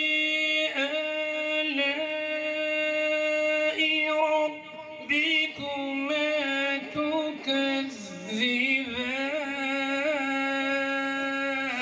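A man reciting the Quran in the melodic, drawn-out tajweed style into a microphone, holding long notes with ornamented turns, with a brief break for breath a little before halfway.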